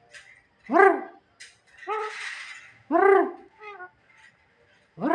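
Pet jalak (starling) giving short calls that rise and fall in pitch, three of them a couple of seconds apart. A raspy, cough-like noise comes about two seconds in, the coughing that its keeper says it keeps doing.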